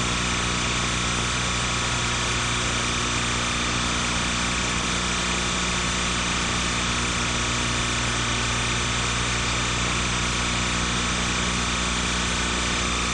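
Steady electrical hum with many fixed tones over an even hiss, unchanging throughout: the noise floor of a transfer of silent film footage, with no sound from the scene itself.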